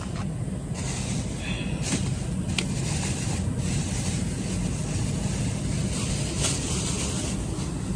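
Steady low rumble of a car's running engine heard from inside the cabin, with a few faint clicks and rustles.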